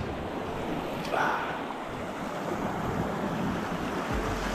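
Sea swell washing over a rocky shore, a steady rush of water with a slightly louder wash about a second in, and wind on the microphone.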